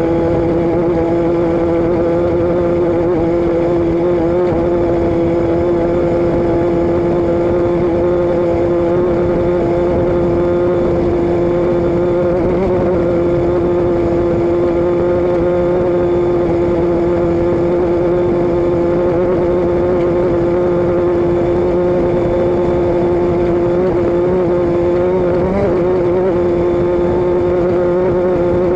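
Vehicle engine and exhaust running at a steady speed, giving a constant droning hum with two strong steady pitches over road or wind noise.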